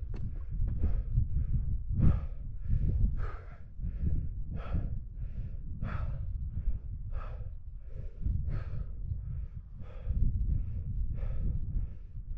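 A climber breathing hard and fast, quick in-and-out breaths of about two to three strokes a second, over a low rumble of wind on the microphone.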